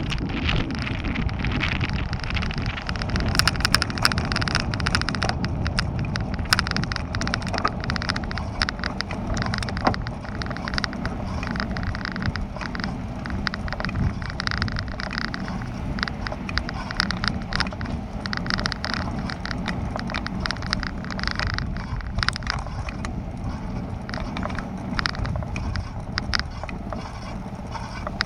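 A bicycle being ridden, heard from a camera mounted on it: a steady low rumble of tyres and air moving past the microphone, with many small rattles and clicks from the bike as it rolls over the surface.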